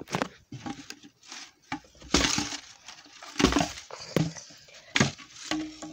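A few loud knocks and thuds with paper rustling in between, as a math textbook is knocked about and handled close to the microphone.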